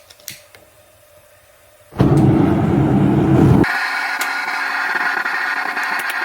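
Propane forge being lit: a few sharp clicks, then about two seconds in the burner catches with a sudden loud low rumble. After about a second and a half this settles into the burner's steady hiss.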